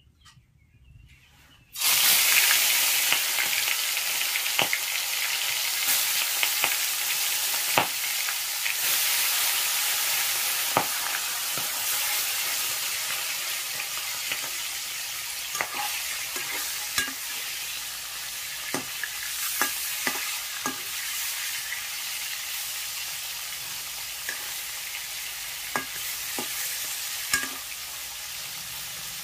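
Small fish pieces frying in hot mustard oil in a kadai: a loud sizzle starts suddenly about two seconds in, with scattered pops and crackles, and slowly eases off.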